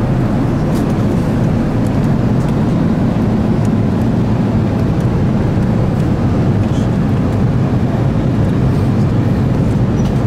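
Steady engine and airflow noise of an Airbus A380 airliner heard from inside the passenger cabin, with a deep low rumble.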